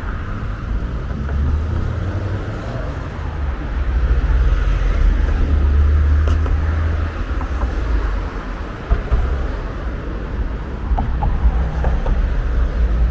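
Road traffic passing: a steady rumble of tyres and engines that swells about four seconds in and eases after about seven.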